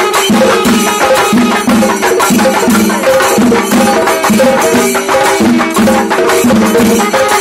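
A chenda drum ensemble: several cylindrical chenda drums struck with curved sticks in a fast, dense rhythm, with hand cymbals ringing along and a pattern that repeats about twice a second.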